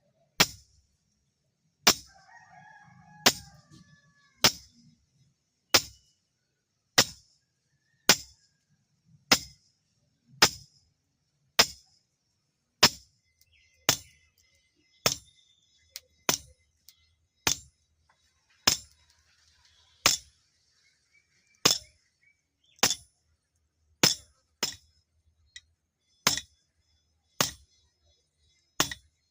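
Hand hammer striking steel on an anvil, forging the blade, about one blow a second with a short metallic ring after each.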